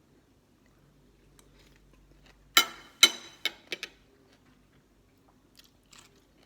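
Pickled sea crab's shell being cracked and pulled apart by hand: a few sharp cracks and snaps between about two and a half and four seconds in, the first two the loudest, then a few faint clicks.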